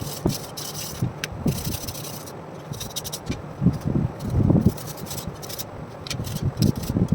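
Hand scraping in short, irregular strokes, with low knocks from handling in between, as rust is worked off the old room heater's metal parts.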